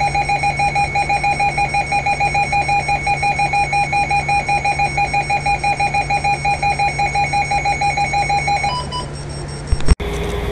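Weather alert radio sounding its alarm for a severe thunderstorm warning: a loud, rapidly pulsing beep, about five pulses a second. Near the end the beeping stops, a short higher tone sounds, then a sharp click and a steady hum as the radio switches to the warning broadcast.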